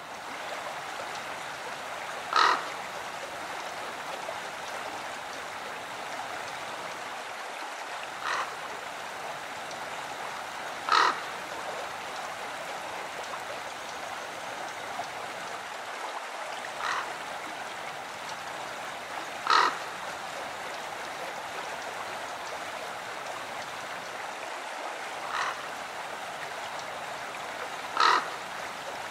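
A steady rush of running water with short animal calls over it. The calls come in pairs, a softer one then a louder one, and the pattern repeats about every eight and a half seconds, like a looped nature-sound track.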